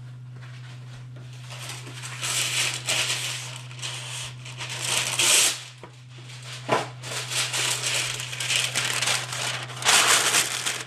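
Parchment paper crinkling and rustling as a sheet is handled and pressed down over a cast-iron skillet, starting about a second and a half in, in irregular louder bursts.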